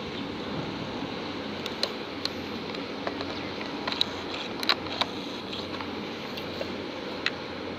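Steady low rumble and wash of a large container ship passing close by, with a few short sharp clicks over it, the loudest a little past halfway.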